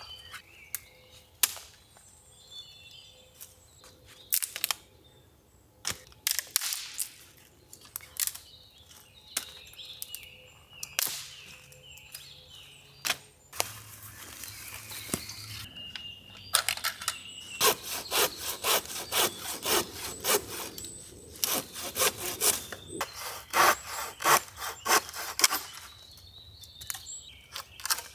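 Hand saw cutting through firewood: a steady run of back-and-forth strokes, about three a second, through much of the second half. Before that come scattered sharp knocks and snaps of wood being handled.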